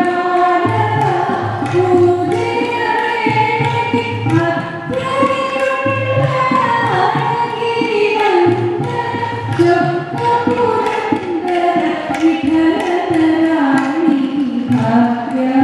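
Indian devotional music in a Carnatic style: a voice singing a gliding melodic line over steady hand-drum strokes.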